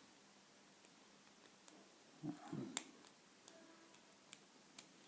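Faint, scattered metallic clicks and ticks of a lock pick working the pins of a Yale 841 five-pin padlock, with one sharper click a little past the middle. The picker thinks he has overset the pins here.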